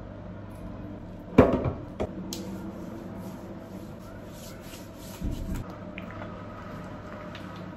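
Plastic toiletry bottles handled in a tiled bathroom: a sharp knock with a short ring about a second and a half in as one is set down hard, a smaller click just after, and a dull thump a few seconds later, over a steady low hum.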